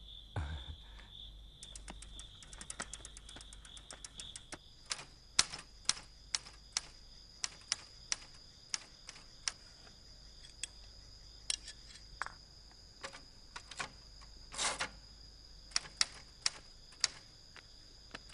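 Crickets trilling steadily, with a low thump right at the start. From about five seconds in, a manual typewriter is typed on: single key strikes at an uneven pace, with one longer rattle about three-quarters of the way through, over a steady high insect trill.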